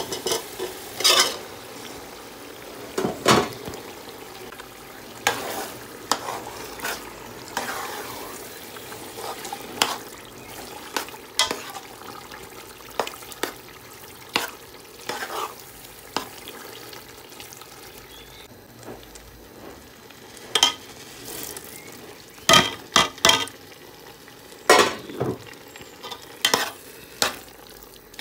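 Chicken mince frying in hot oily curry masala in a steel pot, with a steady sizzle throughout. It is stirred with a metal spoon that scrapes and knocks against the pot many times at irregular intervals.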